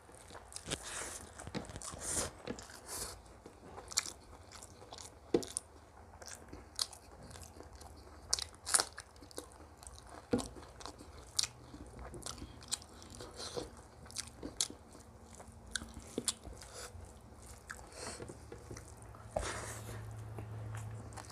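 Close-miked chewing and crunching of food, with many irregular crisp bites and wet mouth clicks.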